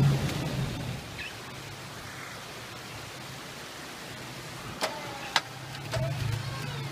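Toyota FJ Cruiser's 4.0-litre V6 engine running at low revs as it crawls over boulders, dropping away after about a second and picking up again near the end. Two sharp knocks sound about five seconds in.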